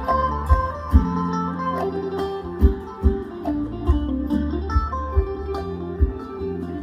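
Isan pong lang folk band playing an instrumental passage: a plucked-string melody over a steady bass, with a drum struck every second or so.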